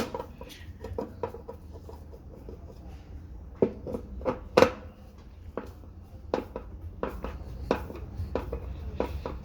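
Hand tool working screws out of a washing machine's agitator drive one by one: scattered metal clicks and clinks, with a few louder knocks a little past halfway.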